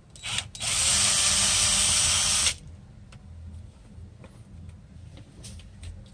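Cordless power drill: a brief blip of the motor, then a steady run of about two seconds that cuts off abruptly.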